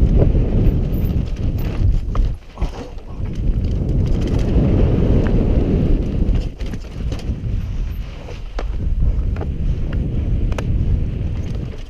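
Mountain bike descending a rutted, sandy dirt trail, heard from a helmet-mounted camera: wind rushing over the microphone and tyres rumbling on the dirt, with scattered clicks and knocks as the bike rattles over bumps.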